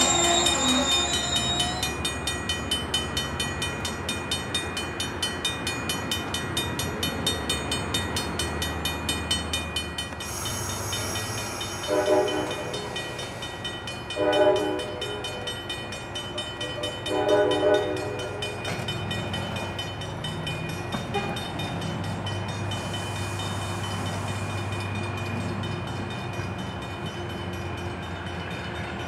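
Metro-North commuter train passing and drawing away: a brief high wheel squeal at first, then a fast steady clatter of wheels over the rails. About halfway through come three short horn blasts a couple of seconds apart, and a low engine drone follows as the train moves off.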